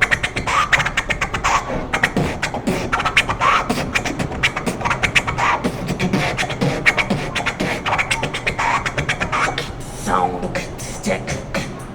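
Human beatboxing: fast vocal percussion of clicks, hi-hat-like hisses and kick and snare hits, woven with short pitched vocal sounds, all made with one person's mouth and voice.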